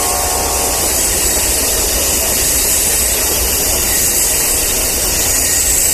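A train horn sounds and cuts off about a second in, followed by the steady rumble and hiss of Amtrak Superliner bilevel passenger cars rolling past.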